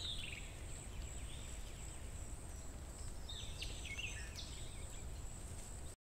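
Savanna ambience: a steady low rumble under a steady high-pitched drone, with short bird chirps near the start and again about three and a half seconds in. It all cuts off abruptly just before the end.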